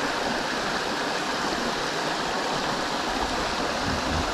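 Flowing river water rushing steadily, an even unbroken hiss.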